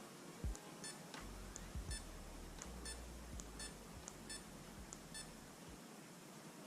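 Garmin Forerunner 235 watch beeping as its buttons are pressed to move through the language menu in first setup: a series of short, high electronic beeps, several in a row.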